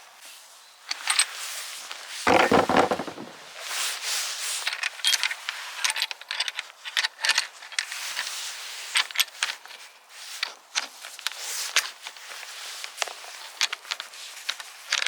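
Hands handling a bicycle saddle, its packaging and fittings: irregular clicks, scrapes and rustles, with a louder knock about two seconds in.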